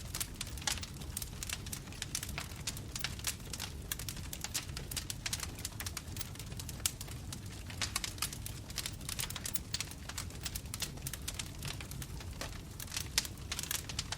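Bonfire crackling: dense, irregular snaps and pops of burning wood over a steady low rumble.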